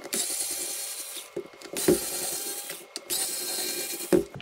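Small cordless electric screwdriver whirring in three runs of about a second each, backing screws out of a plastic battery pack case, with a click near the end.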